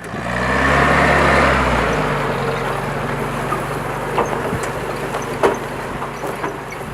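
Old Jeep's engine pulling away and driving off, loudest for the first two seconds, then running steadily, with a few sharp knocks and rattles along the way.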